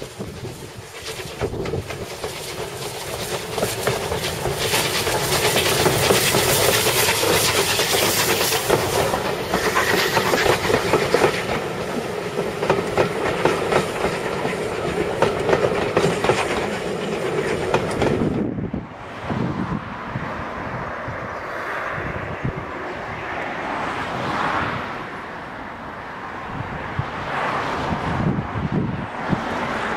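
Steam train running: clattering wheels and a steady rushing noise. About eighteen seconds in, the sound cuts to a quieter steam locomotive working hard, its exhaust beats coming in a rapid series.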